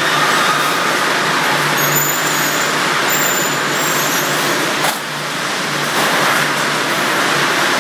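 Steady machinery noise from a running packaging line: belt conveyors and their drive motors, with a low hum that comes and goes and faint high whistling in the middle. A single sharp knock about five seconds in.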